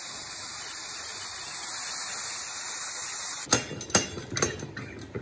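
A steady high hiss that cuts off suddenly about three and a half seconds in, then a few sharp metal clanks as the lid handle and weighted valve knob of an aluminium pressure cooker are handled and the lid is locked down for pressure cooking.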